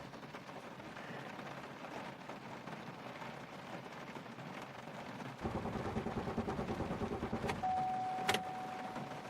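2002 Chevy Malibu being cranked briefly, about five seconds in, as a pulsing whir that stops after about two seconds without the engine catching. A steady electronic beep tone and one sharp click follow. This fits a no-start with the anti-theft system armed.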